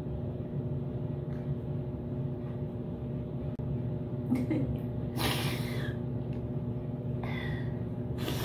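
A woman crying without words: a short whimper about four seconds in, then a sharp sniff and shaky sobbing breaths just after five seconds and again around seven and eight seconds, over a steady low hum.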